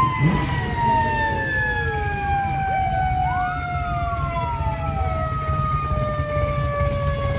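Emergency vehicle siren whose tone slowly slides down in pitch, with other wailing tones rising and falling across it, over a steady low rumble of traffic.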